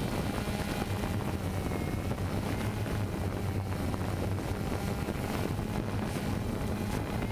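DJI Phantom 2 quadcopter's motors and propellers running in a steady hover, a constant low hum with a rushing noise over it, as picked up by the camera riding on the drone.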